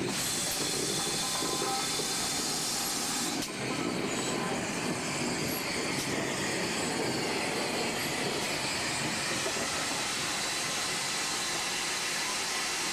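LMS 8F 2-8-0 steam locomotive, coupled behind a GWR pannier tank, rolling slowly past at close range: a steady hiss of steam with the sound of the running gear, broken by a few sharp clicks.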